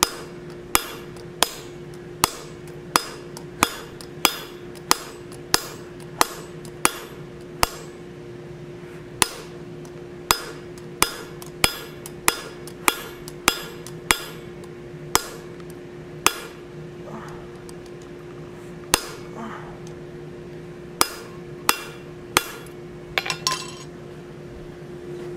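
Blacksmith's hammer striking hot mild steel on the anvil, a long run of separate blows about one every half to one second with a few short pauses, drawing out the lobes of a forged oak leaf. A steady low hum runs underneath.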